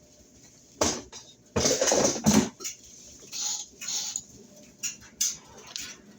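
Kitchen utensils and cookware clattering as cooked meatballs are handled: a sharp clink about a second in, a longer burst of clattering and scraping around two seconds, then a few lighter knocks.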